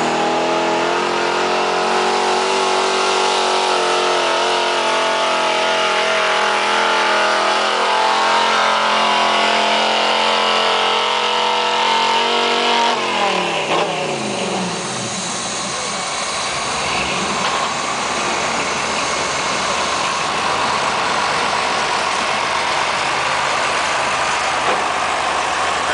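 A lifted pickup truck's engine revving hard under load as it drags a weight sled, its pitch held high and creeping upward; about 13 seconds in the revs fall away sharply as the pull ends, leaving rougher, lower engine running.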